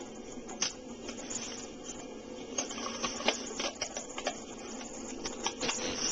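Plastic water bottle crackling and clicking as it is handled and opened: irregular sharp crinkles, a dozen or so, scattered over a steady background hiss.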